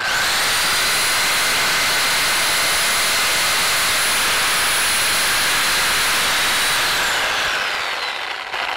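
Reciprocating saw cutting into a 12-gauge 304 stainless steel catalytic converter shield, running at full speed with a steady high whine and making slow progress through the thick stainless. About seven seconds in, the saw winds down, its whine falling in pitch.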